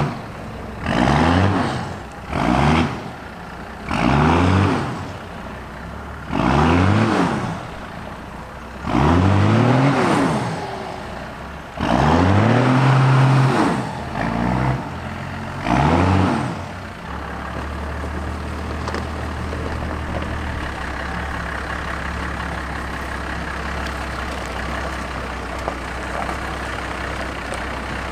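First-generation Dodge Ram's 5.9-litre Cummins 12-valve inline-six turbodiesel revved in about eight quick blips, each rising and falling in pitch. After that it settles into a steady low drone.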